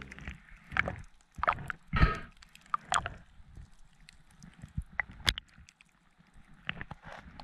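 Water sloshing and splashing around a camera held at the waterline, with irregular splashes and gurgles as a swimmer moves through shallow water.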